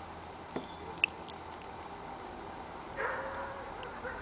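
A single short animal call about three seconds in, over a faint steady outdoor background, with a couple of small sharp clicks in the first second.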